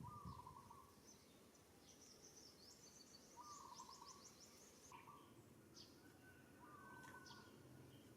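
Faint bird calls: a short call repeated about four times, a few seconds apart, with bursts of quick high chirps in between.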